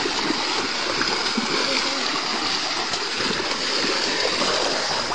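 Feet splashing and sloshing through shallow muddy water as several people walk through it, a continuous watery splashing with a steady hiss.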